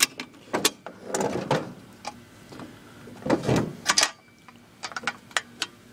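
Clicks, knocks and short scrapes from the housing of an old Dexter film projector being handled and tried for a way to open it.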